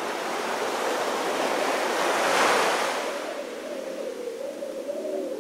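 Sea surf rushing and breaking: the noise swells to a peak about two and a half seconds in, then falls away, leaving a faint wavering tone.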